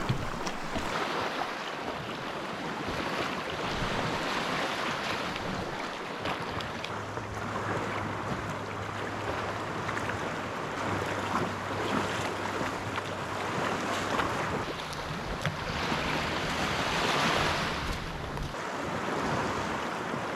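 Wind rushing on the microphone over the sea, with water washing around, and a faint steady low hum through the middle stretch.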